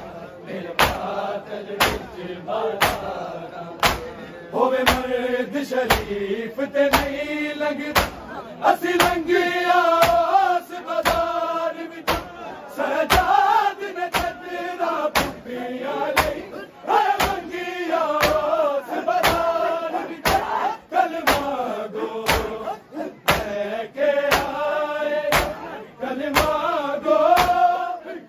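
Men chanting a noha in chorus, kept in time by matam: hands slapping chests in unison, sharp beats about twice a second.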